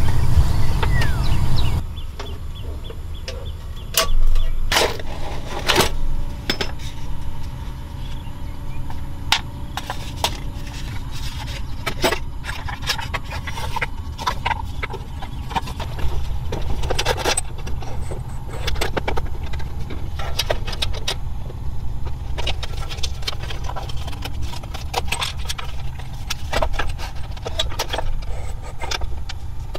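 Handling clatter: a folding wooden table top with metal hinges is unfolded and set onto a metal lunch box, with scattered clicks, wooden knocks and small metal clinks over a steady low rumble. A louder rushing noise fills the first two seconds.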